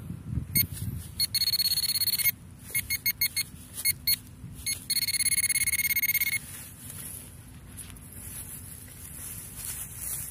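Pinpointer probe beeping as it finds metal in the grass: a held tone of about a second, then a run of short quick beeps, then another held tone of about a second and a half.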